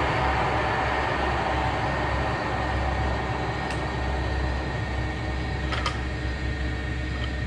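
Monarch 610 Hydro Shift tool room lathe running with a steady mechanical hum and whine from its headstock drive. The running noise drops a little about three seconds in as the spindle is stopped. There is a sharp click near four seconds and two sharp clicks about six seconds in as the headstock lever and speed-select dial are worked.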